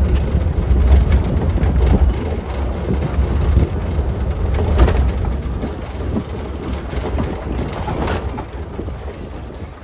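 2016 Ford F-150 pickup driving slowly over a dirt and grass track, heard from the open truck bed: a heavy low rumble of tyres and air with scattered knocks and clicks. The rumble eases off over the last few seconds as the truck slows.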